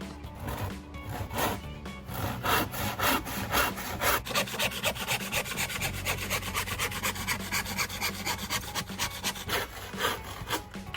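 Hand saw cutting through a plywood end piece in quick back-and-forth strokes, about three a second, with the strokes getting stronger about two seconds in.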